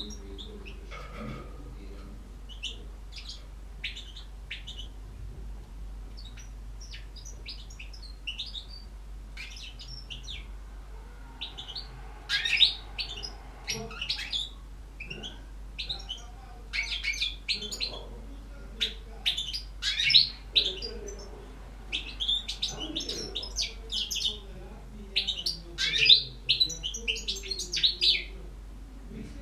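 European goldfinch singing: scattered short, high chirps at first, then from about twelve seconds in a denser, louder run of rapid chirps and trills. A steady low hum runs underneath.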